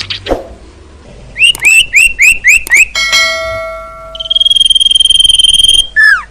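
Loud songbird calls from a recording of sirtu birdsong used as a lure: a run of six quick up-slurred chirps, then a clear whistled note, a long high rapid trill, and a falling whistle near the end.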